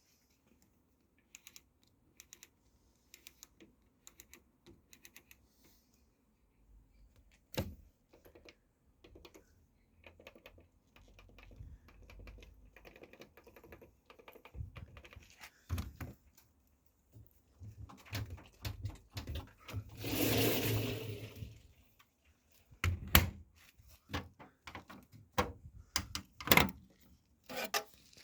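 Hotpoint WMXTF 942 washing machine's drum clunking and knocking irregularly over a low rumble, a noise the owner puts down to bad drum bearings. A louder rushing noise lasts about a second about two-thirds of the way through.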